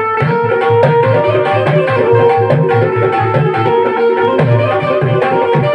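Instrumental interlude of a Hindi devotional bhajan: harmonium playing held melody notes over a fast, regular rhythm of hand-drum strokes, with sharp bright taps among them.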